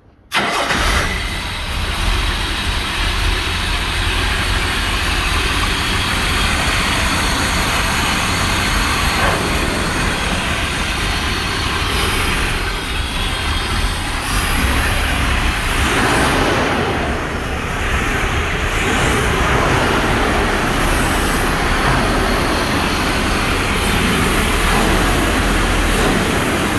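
Jaguar XJ6 straight-six engine running steadily with the bonnet open. It comes in suddenly right at the start, with a strong low rumble.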